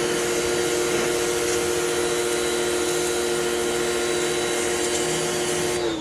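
Crompton CPW70 electric pressure washer running steadily, its motor and pump whining over the hiss of the water jet. Near the end the motor's pitch drops as it winds down.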